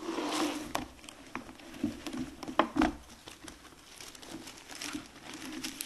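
Crinkling and rustling with scattered sharp clicks, the loudest a little past halfway, over a faint steady hum.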